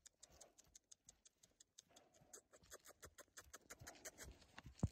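Near silence: faint, quick scratchy ticks that grow denser toward the end, with one low thump just before the end.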